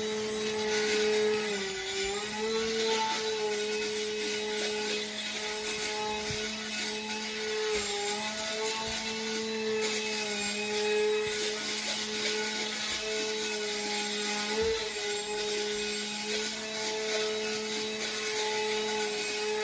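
Micro electric RC plane's motor and propeller buzzing in flight, a steady pitched drone whose pitch dips and rises slightly with throttle changes.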